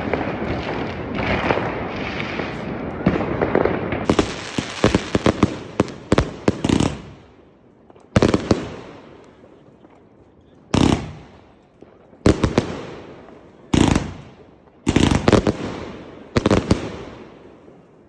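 Fireworks going off in a street at New Year: first a dense crackling barrage, then a quick string of bangs, then single loud bangs every one to three seconds, each echoing off the buildings as it fades.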